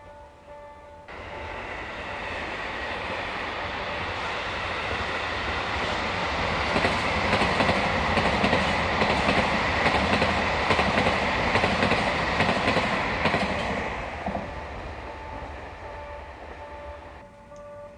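Passenger express train passing close by: the running noise builds over several seconds, wheels clacking over rail joints at its loudest, with a steady high whine, then fades away.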